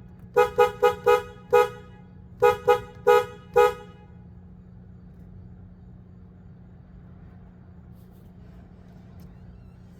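Car horn tooted in short, quick beeps: five, a short pause, then four more, all within the first four seconds. A steady low hum carries on underneath and after them.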